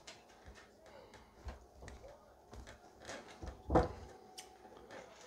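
Faint handling noises of fishing line being tied onto a snap swivel by hand: small clicks and rustles, with one louder knock a little before four seconds in.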